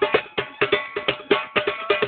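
Turkish folk dance music on davul and zurna: quick, sharp drum strikes several times a second under a reedy melody line.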